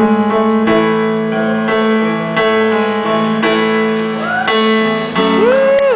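Piano playing a song's intro in sustained chords that change about once a second. Near the end, a couple of rising-and-falling whoops come from the audience.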